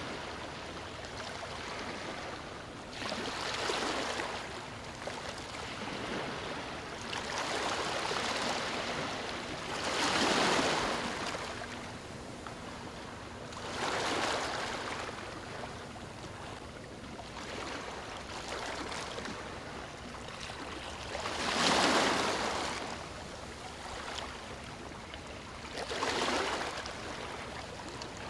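Ocean waves breaking and washing on a beach, a steady hiss of surf that swells every few seconds, the biggest breakers about ten seconds in and again near the end.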